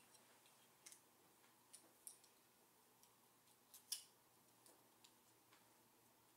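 Near silence with a handful of faint, scattered clicks of metal forceps handling a glass cover slip, the loudest about four seconds in.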